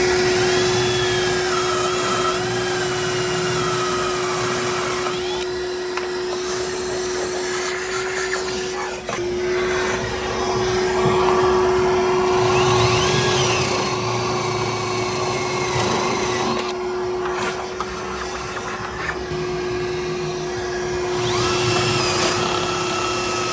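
Workshop power tools: a steady mechanical hum with a power tool whining, speeding up and slowing down in pitch several times.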